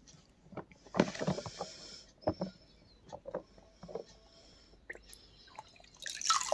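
Water splashing and sloshing in short bursts, the loudest about a second in and again near the end, with small knocks and clicks between them as toy cars are moved through the water.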